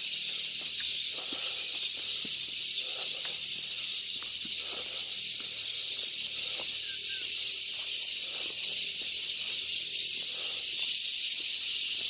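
Steady high-pitched hissing chorus of insects in forest, unbroken and even in level, with faint footsteps on a dirt path beneath it.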